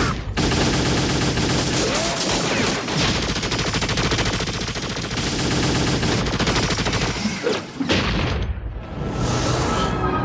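Sci-fi cartoon battle sound effects: sustained rapid energy-weapon fire mixed with explosions. After a short break about eight seconds in, a rising whoosh of a spacecraft flying past.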